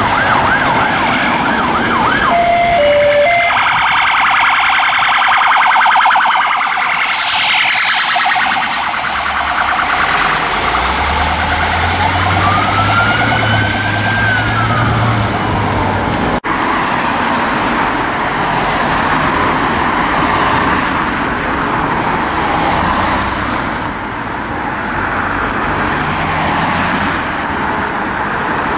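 Police car sirens on two response cars: fast warbling yelps laid over each other (a double phaser), with a brief low steady tone near three seconds in and one slow rising-and-falling wail about twelve seconds in. Around sixteen seconds in the sound cuts abruptly to a steady rushing background with no siren.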